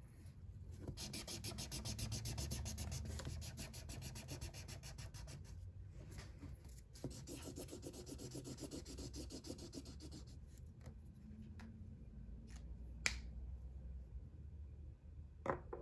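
Felt-tip marker rubbed rapidly back and forth on paper, colouring in a filled area with quick scratchy strokes. The strokes stop about ten seconds in, followed by a few light clicks, one sharper than the rest.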